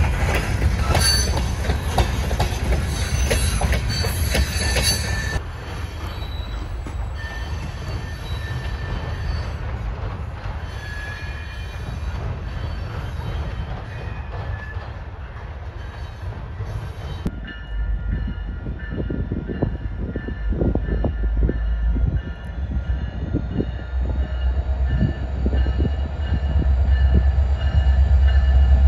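Freight train passing: the wheels of covered hopper cars clatter over the rail joints with some steady wheel squeal. Near the end the low rumble of a Canadian Pacific diesel locomotive builds as it approaches.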